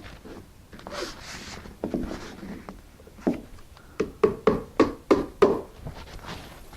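Hammer driving a roofing nail through roofing felt into the sheathing: a single knock, then a quick run of about six blows. Before the blows, the felt paper rustles as it is handled.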